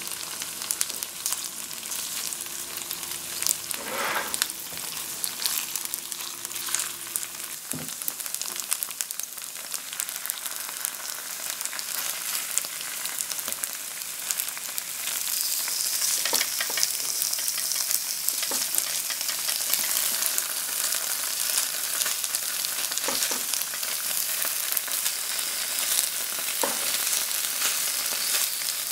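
Squares of hard tofu sizzling and crackling as they pan-fry in a non-stick frying pan, with occasional scrapes and taps of a silicone spatula turning them. The sizzle grows louder about halfway through.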